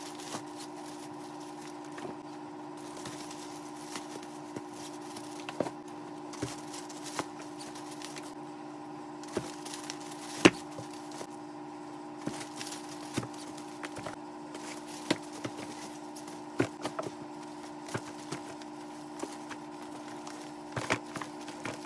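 Plastic-wrapped items and drawstring bags being handled and set into a clear plastic storage tote: scattered light knocks and taps, with one sharper knock about halfway through, over a steady electrical hum.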